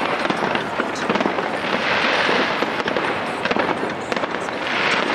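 Fireworks display: dense, continuous crackling from crackle stars and bursting shells, swelling into a louder hiss about two seconds in and again near the end.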